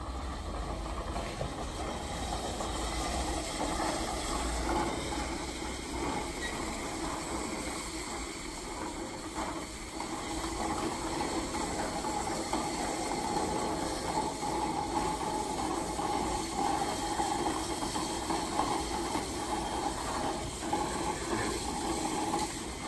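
Automatic bottle-loading turntable running: its rotating stainless steel disc carries empty plastic bottles round, and they slide and knock against each other and the guide rail in a steady clattering rustle full of small clicks.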